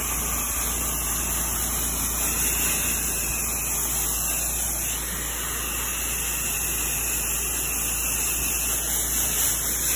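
Pressure-washer spray gun shooting a steady high-pressure jet of water, a constant loud hiss, over the low steady hum of the 8 GPM pressure-washer machine running.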